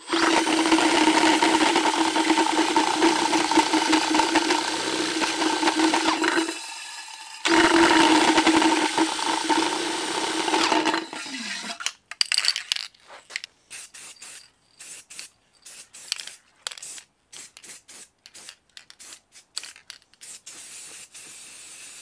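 Cordless drill spinning a spray paint can inside a tube shaker to mix the paint, running at a steady pitch with a brief pause about six seconds in, then winding down and stopping about eleven seconds in. After that, a string of short spray-can hisses as the paint is sprayed on.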